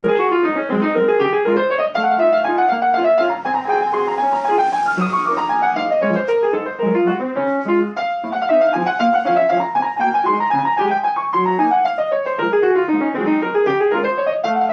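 Piano playing fast flowing runs and arpeggios that sweep down and back up several times over a steady lower accompaniment, cutting off abruptly at the end.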